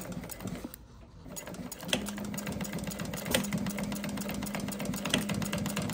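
Industrial sewing machine stitching through the bag's fabric. After a few light clicks it starts up about a second and a half in and runs steadily: a rapid, even clatter of needle strokes over the motor's hum.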